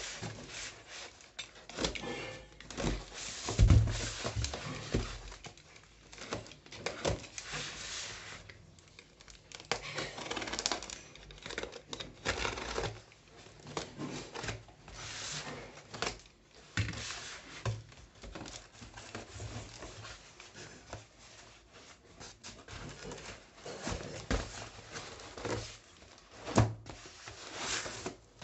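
A parcel wrapped in brown paper and packing tape is cut and torn open by hand: tape tearing and paper crinkling in irregular bursts, with scattered thumps as the parcel is handled, the loudest about four seconds in.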